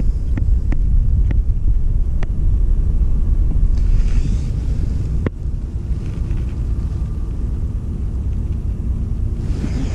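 Steady low rumble of wind and handling noise on the camera microphone, with a few light clicks in the first couple of seconds and one sharp click about five seconds in.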